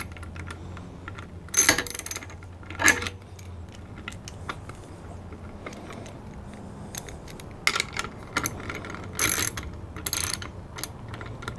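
A 7/16-inch ratchet wrench clicking in short bursts, with small metal clinks, as it tightens nuts onto 1/4-inch bolts holding steel conduit straps and a saw blade. There are about half a dozen bursts, bunched near the start and again toward the end.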